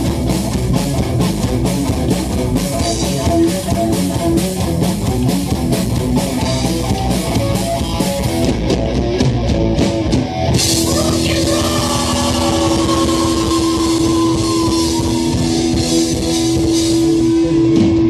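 Live rock band of distorted electric guitar, bass guitar and drum kit playing a fast instrumental passage with rapid, driving drums. About ten seconds in, the band breaks into one long held chord with ringing cymbals, the ending of the song.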